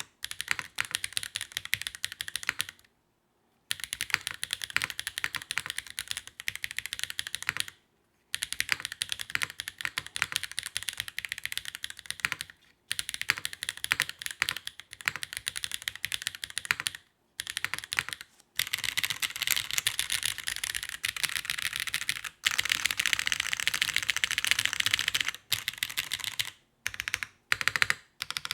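Mechanical keyboard with HMX Firecracker tactile switches (factory-lubed, POK stems) on a carbon plate, typed on in fast runs of keystrokes. The typing stops briefly a few times, is faster and louder in the second half, and thins to separate single keystrokes near the end.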